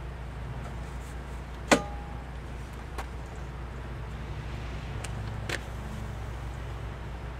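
Steel frame tubing and clamps being handled on a bench. There is one sharp metal clank with a brief ring just under two seconds in, then a few lighter clicks, over a steady low hum.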